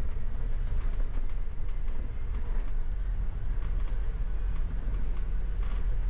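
Upper-deck cabin noise of a moving double-decker bus: a steady low rumble, with frequent small rattles and clicks.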